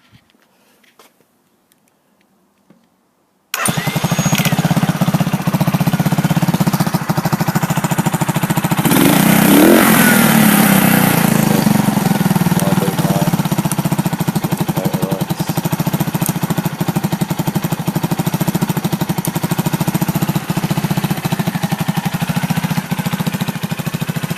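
Herald Phantom 250 bobber's engine fires up suddenly about three and a half seconds in and settles into a steady idle, with one blip of the throttle, rising and falling, about ten seconds in. It runs through its stock exhaust, which the owner calls quite restrictive.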